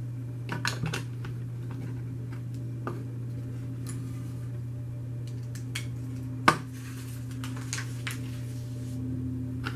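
Plastic Lego pieces clicking and clattering as they are handled and pressed together, in scattered small clicks with one sharp, louder click about six and a half seconds in. A steady low hum runs underneath.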